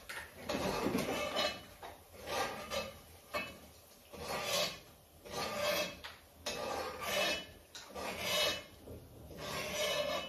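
A metal utensil scraping in a cooking pot at the stove, repeated rasping strokes about one a second.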